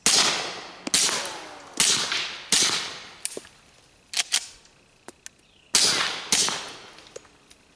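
Six suppressed .45 shots from an FNX-45 Tactical pistol through a SilencerCo Osprey 45 suppressor fired wet, with wire-puller gel inside. Four come about a second apart, then after a pause of about three seconds come two more, with a few fainter clicks in between.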